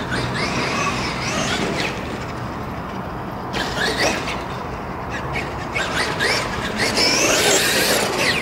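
Electric RC off-road car's motor whining, its pitch rising and falling over and over as the car accelerates and slows. The whine fades for a moment about two seconds in, picks up again, and is loudest near the end.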